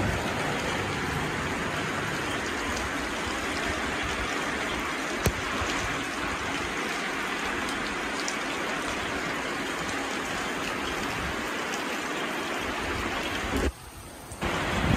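Heavy rain pouring steadily, a dense even hiss of rain on surfaces. A single sharp tick comes about five seconds in. The sound drops off abruptly near the end.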